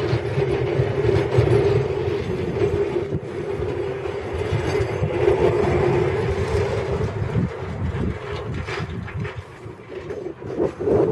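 Snowplow dump truck passing close, its engine running and its front and wing plow blades scraping and clattering over the snow-covered road in a steady rumble that eases a little near the end.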